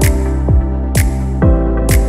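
Electronic background music with a steady beat. A deep kick drum drops in pitch about twice a second, a sharp snare-like hit lands about once a second, and held synth chords change about one and a half seconds in.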